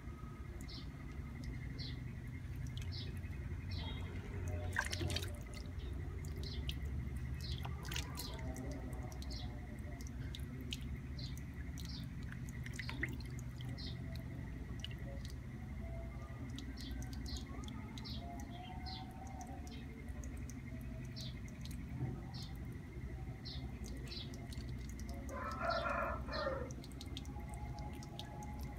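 Water splashing and dripping as hands wash and handle freshly caught swamp eels in a plastic basin, with short high ticks about twice a second.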